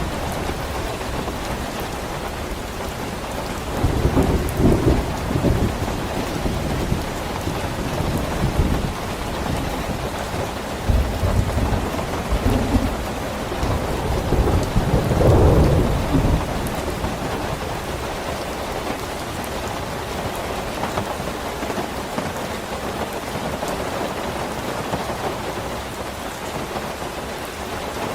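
Steady heavy rain falling, with low rolls of thunder rumbling through it several times, the loudest about halfway through.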